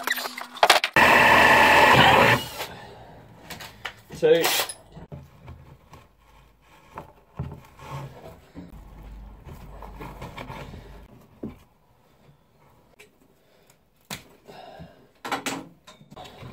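A power drill runs once, for under two seconds, near the start. After that come quiet scattered rustles and small knocks as a rope is handled and threaded through the sledge's front.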